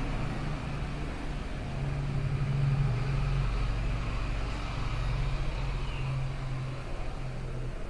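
Hot air rework gun blowing steadily with a low hum under its hiss, swelling slightly in the middle, while it reflows the solder under a replacement IC on a laptop motherboard.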